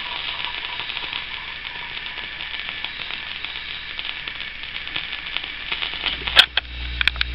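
Surface noise of a 10-inch 78 rpm record, with steady hiss and crackle as the stylus rides the run-out groove after the recording has ended. Near the end come a few sharp, loud clicks and a low hum.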